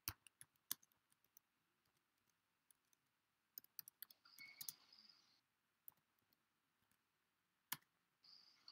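Faint computer keyboard typing: scattered key clicks in short runs with pauses between, and a single last click near the end.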